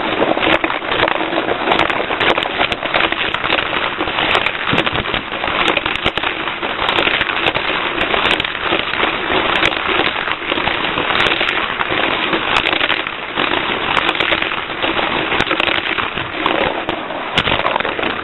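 Cars 2 Charge Ups rechargeable toy car running around a plastic slot-style track: a steady, dense crackling rattle of its small electric motor and wheels on the track, with many sharp clicks.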